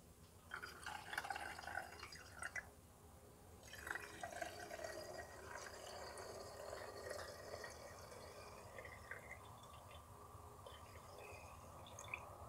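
Fuel trickling from a flexible gas-can spout into a chainsaw's fuel tank, in two pours: one about half a second in lasting two or three seconds, and a longer one starting about four seconds in that runs on steadily.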